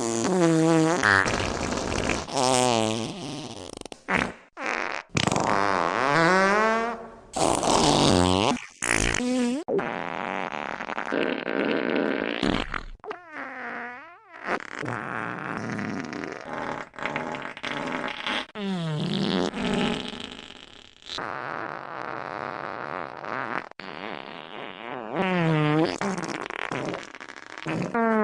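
Brushless motors of a 5-inch FPV quadcopter (2206 2700KV motors on 5x4.3 props) whining, the buzzy pitch sweeping up and down steeply as the throttle changes. It cuts almost to nothing briefly a few times, around four to five seconds in and again near nine seconds.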